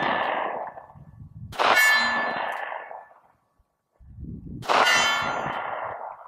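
Two 9mm pistol shots about three seconds apart from a Smith & Wesson M&P 9, each followed by the ringing clang of a steel target being hit, fading over a second or so.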